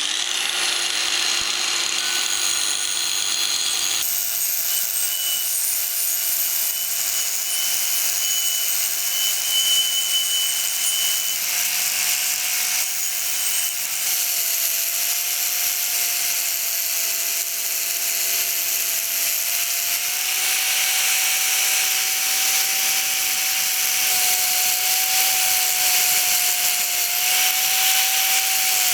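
Angle grinder with a wire brush scouring rust and old paint off the steel body of a grease-gun oiler after a citric-acid soak. It is a steady motor whine over a harsh bristle hiss, with the pitch stepping up about four seconds in and wavering slightly as the brush is pressed on.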